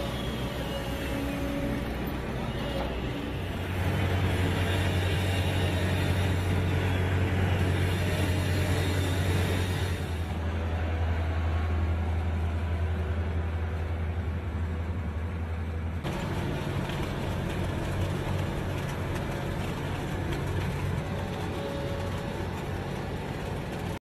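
Diesel engines of road-paving machinery, an asphalt paver and a tandem road roller, running with a steady low drone. The mix of engine sound changes abruptly three times.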